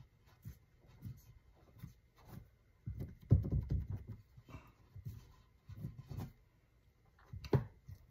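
Fingers pressing and rubbing pizza dough into a metal muffin tin: soft, irregular scuffing and rubbing with occasional light knocks. The loudest stretch is about three seconds in, with another sharp knock near the end.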